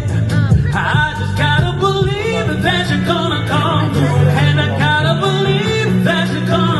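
Music with a singing voice over steady held bass notes.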